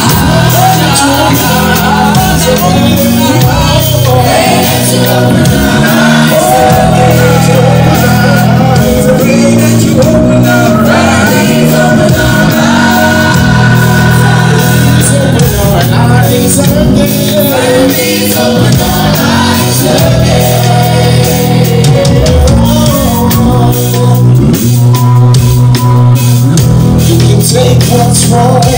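Live gospel worship music played loud by a band with bass guitar, with singers on microphone and the congregation singing along.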